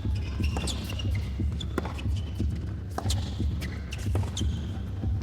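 A tennis rally on an indoor court: racket strikes on the ball come about every second and a half, mixed with sneaker squeaks, over a steady rumble from the arena.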